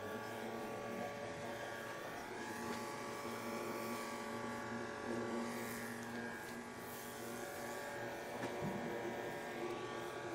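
Steady buzzing hum made of several held tones, as from a small electric motor or electrical device running without change.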